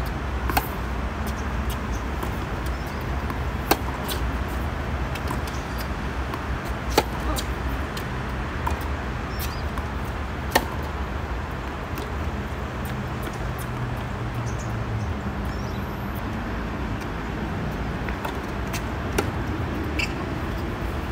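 Tennis rally on a hard court: sharp pops of racket strikes and ball bounces a few seconds apart, the loudest near the start and about 4, 7 and 10.5 seconds in, over a steady low background rumble.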